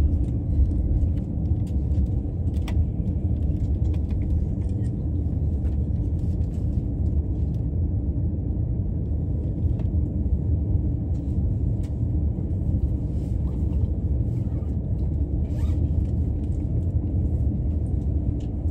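Steady low rumble of a Tokaido Line electric commuter train heard from inside the carriage as it moves slowly along the platform, pulling out of the station, with a few faint clicks and rattles over it.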